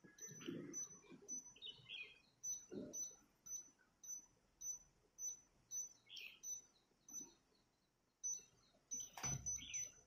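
Whirlpool washing machine control panel beeping, short high beeps about two or three times a second as the held delay-timer button steps the timer; the beeping stops for a moment near the end and starts again.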